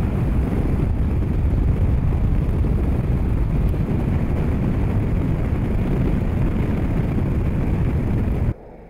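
Fiat 500X driving fast over snow-covered ice, a steady low rumble of engine, tyres and wind. Near the end it cuts off suddenly to a much quieter sound.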